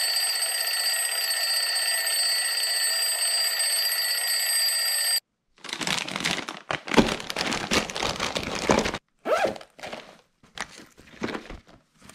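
Digital alarm clock sounding with a steady, shrill electronic alarm tone that cuts off suddenly about five seconds in. Then rustling and knocks as a soft tackle bag is handled and packed with plastic tackle boxes and lure packs.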